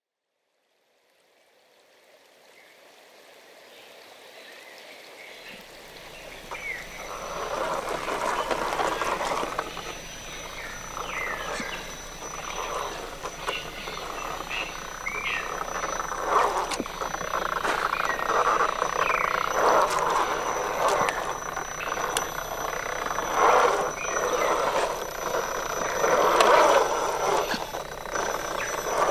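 Traxxas Stampede 4x4 RC truck's electric motor and drivetrain running in surges with the throttle as it drives through wet mud and forest litter, fading in over the first few seconds.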